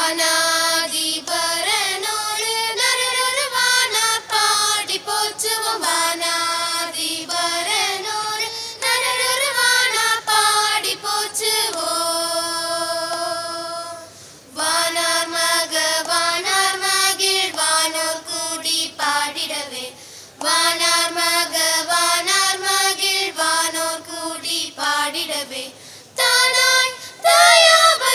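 A group of children singing a Tamil Christmas carol in unison, in phrases with short breaks between them and one long held note about halfway through.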